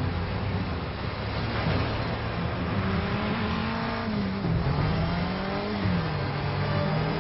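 Vehicle engine revving, its pitch rising and falling several times over a steady rushing noise.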